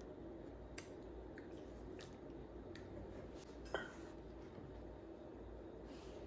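Quiet kitchen handling sounds: a few light clicks and taps over a steady low hum, the loudest a sharp click with a short squishy squeak a little under four seconds in.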